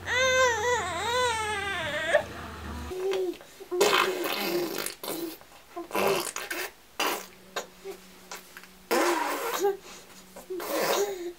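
A young child making noises with the voice: a high, wavering squeal, then a string of breathy, spluttering blows like raspberries, in short irregular bursts.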